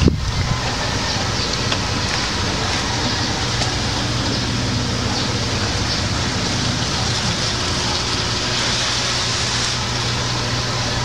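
Steady low hum under an even hiss.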